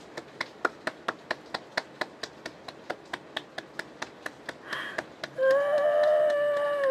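Hand claps, about four a second, steady and even. About five seconds in, a woman's voice rises into a long, held, emotional cry that is louder than the claps.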